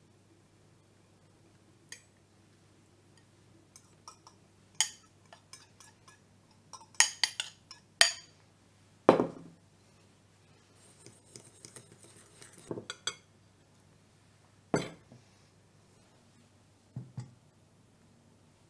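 A small bowl and a fork clinking and tapping against a glass mixing bowl: scattered sharp clinks, the loudest cluster about halfway through, one dull knock, and a short scrape a little later.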